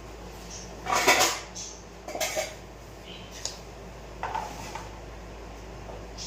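Plastic lunch box and cutlery clattering on a counter as a lunch is packed: a handful of short knocks and rattles, the loudest about a second in.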